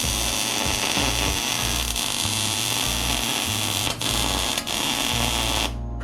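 Electric arc welder laying a weld bead: a loud, steady crackling hiss that cuts off suddenly near the end.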